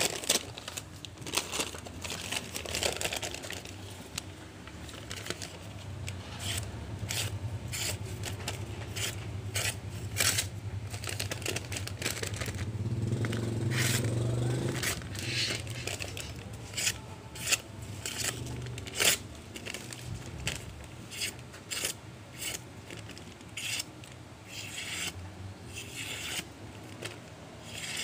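Small knife, freshly sharpened on a whetstone, slicing through glossy paper flyer sheets: many quick, crisp cuts and paper rustling, some in fast runs. A low hum sits underneath for a stretch in the middle.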